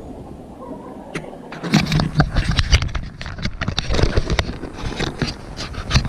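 Irregular clicks, knocks and scraping, starting a little under two seconds in, from something being handled.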